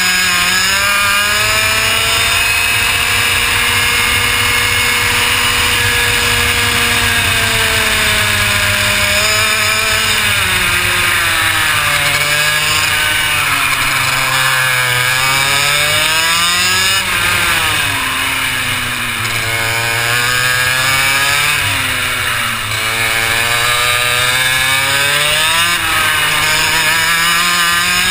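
Two-stroke kart engine at racing revs, recorded onboard. It is held high for the first several seconds, then drops as the kart brakes for the hairpin and chicane and climbs back up on each exit, several times, before rising on the final straight.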